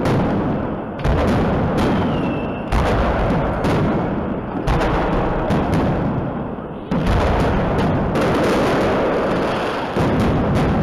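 Aerial fireworks shells bursting overhead in quick succession: about ten loud bangs, each followed by a long rolling rumble as the blasts echo between tall buildings.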